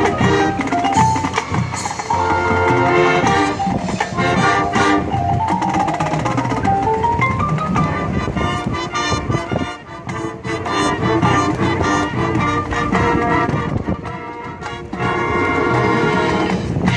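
High school marching band playing: brass with drums and mallet percussion. A stepwise rising run climbs about six seconds in, and the band eases off briefly around ten and fourteen seconds before coming back in full.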